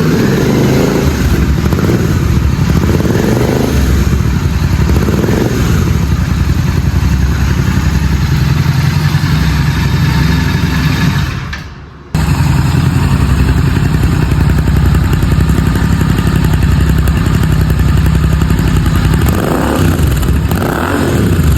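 Royal Enfield Continental GT 650's 648 cc parallel-twin engine running steadily through a Red Rooster Performance exhaust with the dB killer fitted. The sound fades and breaks off abruptly about twelve seconds in, then the engine is heard running again.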